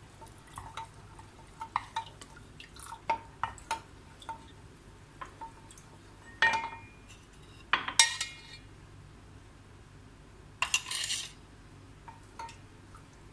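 A wooden spoon stirring a thin mix of arrowroot powder and water in an aluminium pot, with light, irregular knocks and scrapes against the metal. There are a few louder clanks with a short metallic ring about halfway through, and a brief scraping swish near the end.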